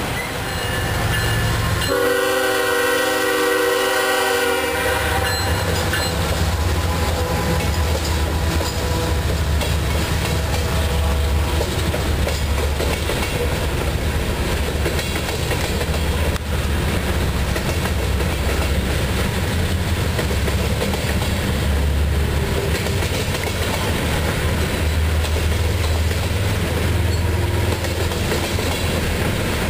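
A freight locomotive's air horn sounds one long blast of about three seconds, starting about two seconds in. Then the freight train rolls past with a steady low rumble.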